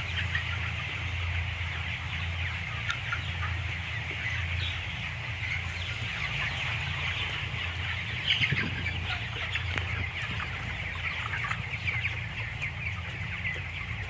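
A large flock of 28-day-old broiler chickens clucking and peeping together in a dense, continuous chatter, over a steady low hum.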